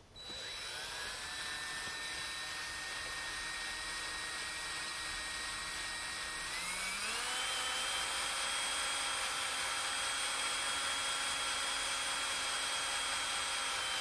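Cordless drill driving a screw-type honey pump, its motor whining. The whine rises as the drill spins up, holds steady, then climbs to a higher pitch about halfway through as it speeds up and stays there.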